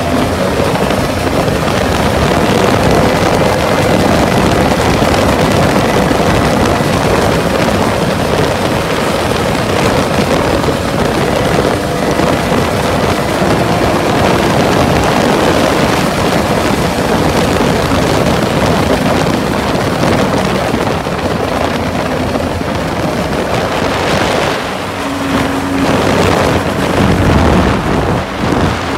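Mini jet boat engines running at high speed, with water rushing and wind buffeting the microphone. A clearer engine note stands out for a few seconds near the end.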